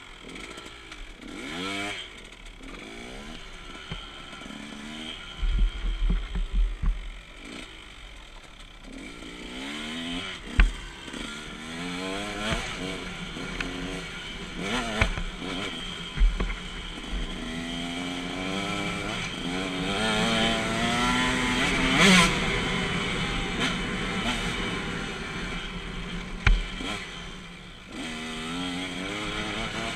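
KTM 125 SX two-stroke motocross bike engine revving up and falling back over and over as it is ridden, with several sharp low thumps.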